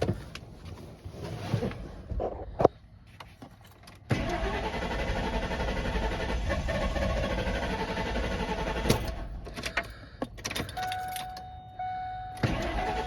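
1998 Ford Expedition V8 engine being restarted after stalling: a click, then about four seconds in it catches and runs for some five seconds before falling away. A steady chime tone sounds repeatedly near the end.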